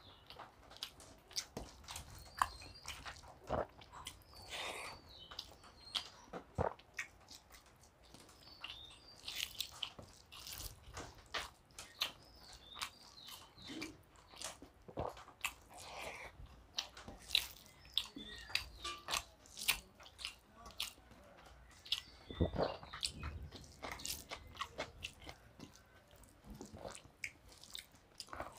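Close-miked eating sounds of a man biting and chewing potato pakoras and hand-mixed rice and dal, with many irregular sharp mouth clicks.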